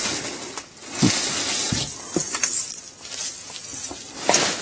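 Rustling and crinkling of a plastic carrier bag, cardboard and artificial tree branches being handled in a box of Christmas decorations, with a few soft knocks.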